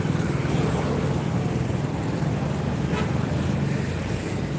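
Steady low rumble of outdoor street background noise.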